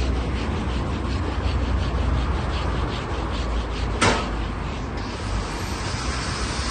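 Sandpaper rubbing by hand over a plastic car door panel in quick back-and-forth strokes, about three a second, over a low traffic rumble. A single sharp knock about four seconds in.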